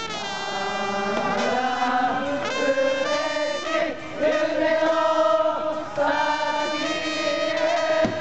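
Baseball cheering-section trumpets playing a cheer-song melody, with the fans chanting and singing along.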